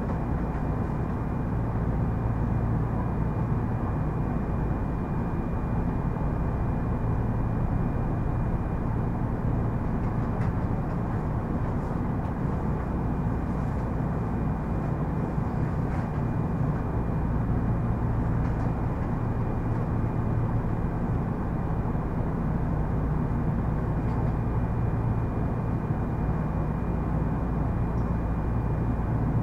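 Kintetsu 3200 series electric train running at steady speed, heard from inside the car: a continuous rumble of wheels on rail with a low hum and a thin, steady high tone.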